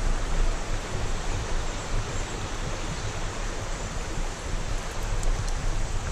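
Steady even rush of the Clare River flowing over rocks, with an irregular low rumble on the microphone.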